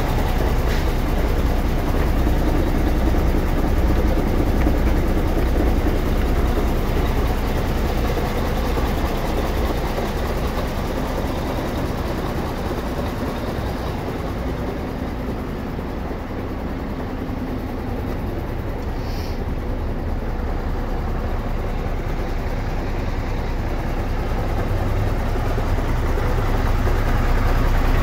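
MAN 19.464 tanker truck's straight-six diesel engine idling steadily. It is a little quieter in the middle and grows louder near the end.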